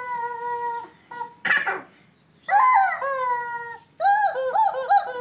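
Squeezed yellow rubber chicken toys squawking: three long, held squawks, the last one warbling at its start, with a short hiss of air about one and a half seconds in.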